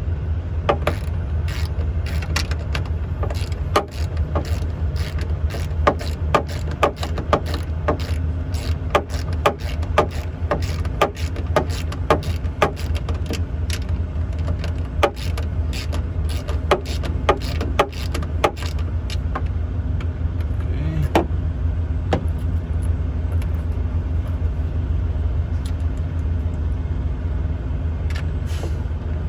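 A small wrench clicking and knocking on metal as the hood mirror's mounting nuts are tightened, with many short clicks in uneven runs. A steady low engine drone runs underneath.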